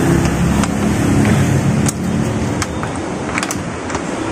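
A motor vehicle's engine running, loudest for the first two seconds and then fading. Light metallic clicks of parts being handled at a wheel hub sound several times over it.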